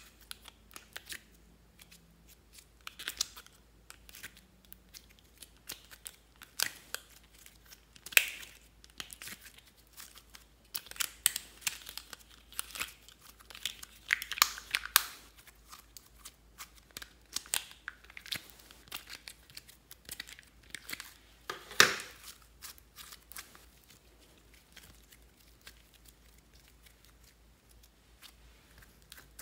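Slime being pulled from the compartments of a segmented plastic case, a run of irregular crackly clicks and sticky peeling sounds from the plastic lids and slime, with one louder snap about two-thirds of the way through. It grows quieter near the end.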